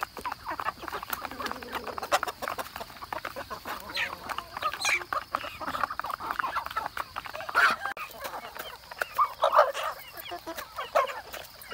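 A flock of chickens clucking and calling while feeding, over many quick clicks of beaks pecking at feed in plastic plates; a few louder calls stand out in the second half.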